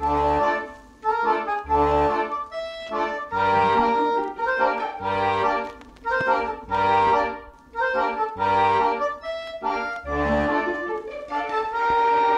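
Background music: a melodic tune over deep bass notes that come at a steady pace, about one every one and a half to two seconds.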